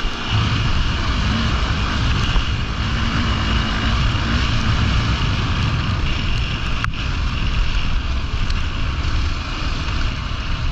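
Off-road rally motorcycle's engine running as it is ridden along a dirt track, under a dense low rumble of wind and riding noise on the handlebar-mounted camera. A single sharp knock from the bike comes about two-thirds of the way through.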